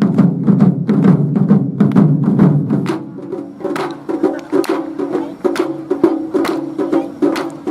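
Japanese taiko drum ensemble playing rapid, heavy drum strikes mixed with sharp clacking hits. About three seconds in, the deep drumming drops away, leaving lighter, quicker clacks over a pulsing pitched tone.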